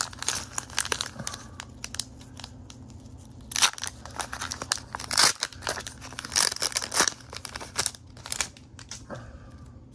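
Foil wrapper of a Pokémon card booster pack crinkling and tearing as it is opened by hand, a run of irregular sharp crackles with several louder rips in the middle.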